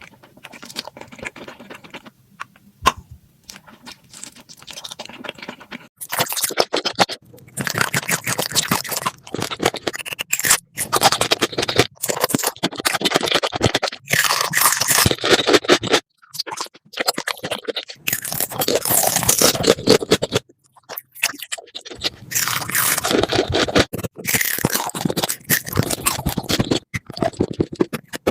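Close-miked eating: dense crunching and crackling, faint and sparse at first, then loud from about six seconds in, with a few brief pauses.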